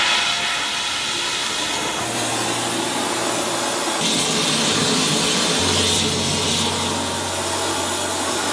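Gas welding torch flame hissing steadily, with low sustained music notes underneath.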